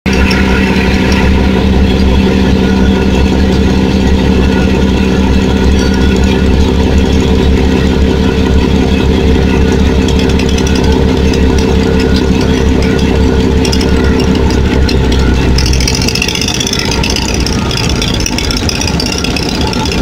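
Boat engine running with a steady hum. About three-quarters of the way through the low hum fades and a rushing hiss comes up.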